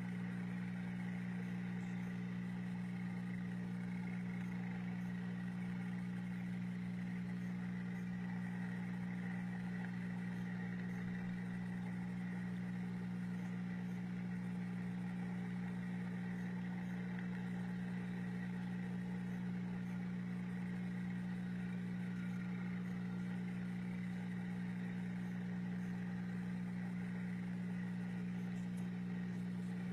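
Steady low electric hum of the fish tank's pump, unchanging throughout.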